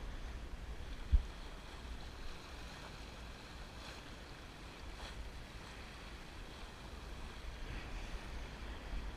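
Water rushing along a Drabant 27 sailboat's hull as it sails, with wind buffeting the microphone in a low rumble. One sharp thump about a second in.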